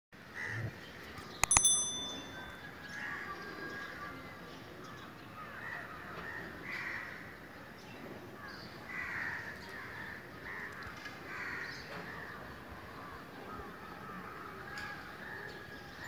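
Birds calling over and over, with many short overlapping calls. About a second and a half in there is a sharp click followed by a brief bright ringing ding.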